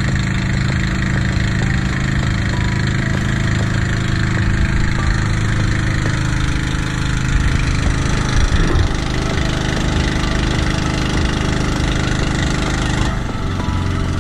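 Outrigger bangka boat's engine running steadily under way, briefly louder about eight seconds in.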